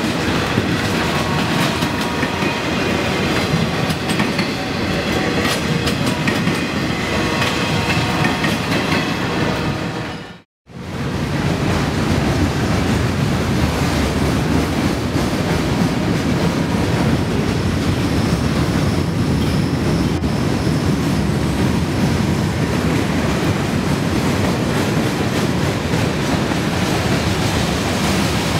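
Freight cars rolling past at close range: steady wheel-on-rail rumble with clickety-clack, and thin high ringing tones over it for the first ten seconds or so. The sound cuts out for a moment about ten seconds in, then boxcars keep rolling by with a deeper, heavier rumble.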